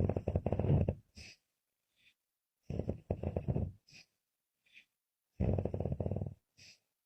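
A woman snoring: three loud, fluttering snores about a second long, one roughly every two and a half seconds, each followed by a short faint breathy puff.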